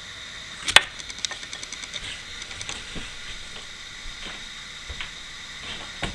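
OO gauge model Class 66 diesel locomotive hauling a test train along the layout track: a steady faint whine and hiss, with light irregular clicks from the running train and one sharper click about a second in.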